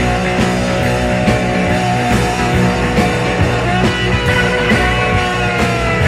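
Rock music with a steady beat and sustained instrument tones.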